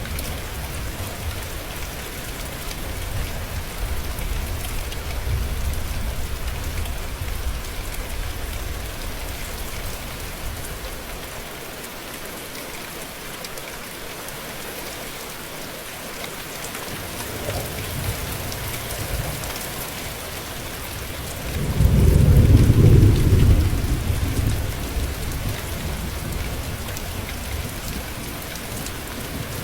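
Steady rain hissing, with low rolling thunder that fades away and builds again; a louder thunder rumble comes about three quarters of the way through.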